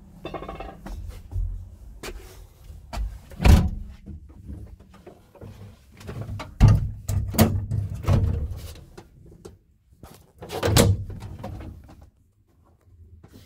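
Irregular knocks, clicks and rubbing of handling inside an excavator cab, with three louder thumps, over a low steady hum.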